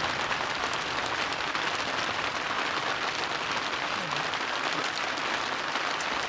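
Steady, even hissing background noise, with a faint voice heard briefly about four seconds in.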